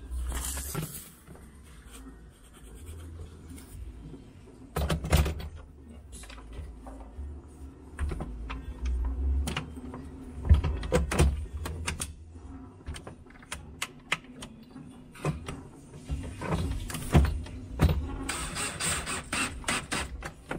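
Plastic panels and housing parts inside a refrigerator being handled and fitted together, with scattered clicks and knocks. Near the end there is a denser stretch of scraping.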